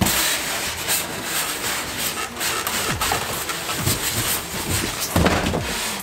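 Styrofoam packing blocks rubbing and squeaking against a cardboard box as a boxed miter saw is lifted out, with a continuous scraping and a louder scuffle about five seconds in.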